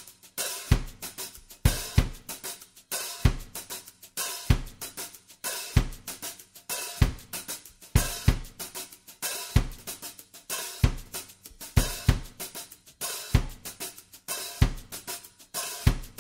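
Background music: a drum beat with a bass drum hit about every second and a quarter and busy hi-hat, snare and cymbal hits in between.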